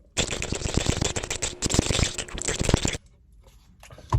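Dense crackling, rustling noise packed with small clicks, starting abruptly and stopping suddenly after about three seconds.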